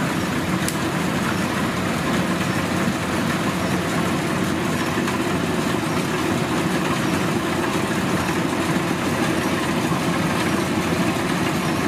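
Kubota DC-105X combine harvester running steadily, its diesel engine and machinery making a constant dense drone.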